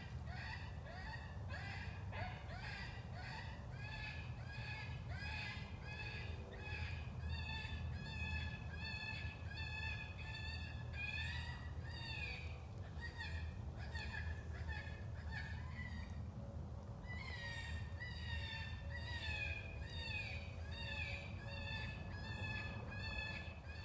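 Electronic predator call (FoxPro) playing a prey-distress sound: high, crying squeals repeated about two to three times a second, each falling in pitch, with a short break about two-thirds of the way through. A steady low rumble sits underneath.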